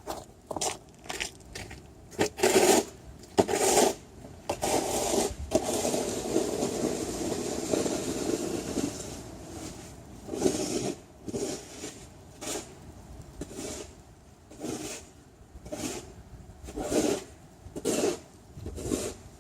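Crunching footsteps through deep snow, about one and a half steps a second, with a longer steady scraping rush a few seconds in.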